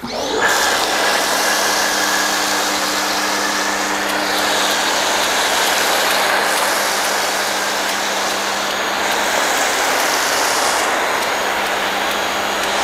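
Ryobi 1800 PSI electric pressure washer running and spraying soap foam through an MJJC Foam Cannon Pro. A steady motor hum lies under the loud, even hiss of the foam spray, starting at once and holding steady.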